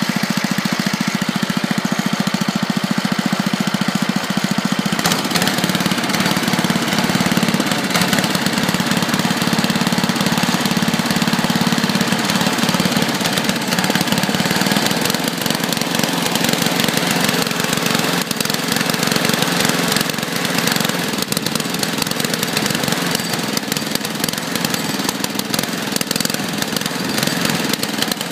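Tecumseh small engine running continuously and unevenly, misfiring.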